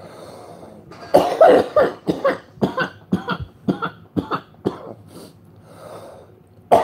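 A man's coughing fit from a toke of cannabis smoke: a breath out, then a rapid run of about a dozen short coughs that weaken as they go, and one more loud cough near the end.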